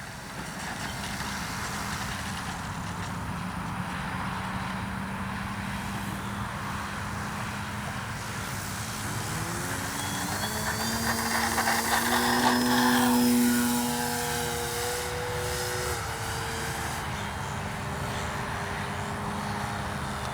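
Electric RC model plane, a Ryan STA with a brushless outrunner motor turning a 13×6.5 propeller, whining as it flies in low and past. The pitch rises about nine seconds in, the sound is loudest around thirteen seconds, and the pitch drops as the plane goes by.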